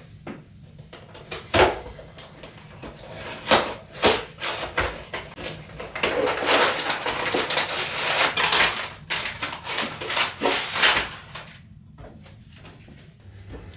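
Hands handling a LEGO set's box and parts packaging: a run of sharp clicks and knocks, with a longer stretch of rustling in the middle.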